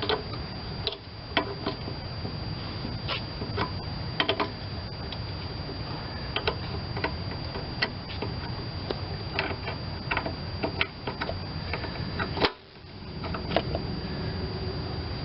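Irregular light clicks and taps of hand tools and small metal parts being worked on a Tecumseh mower engine, over a steady low hum; the background drops out briefly near the end.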